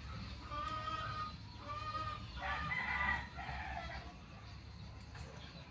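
Chickens clucking in a series of short calls, with a longer rooster crow about two and a half seconds in; the calls stop after about four seconds.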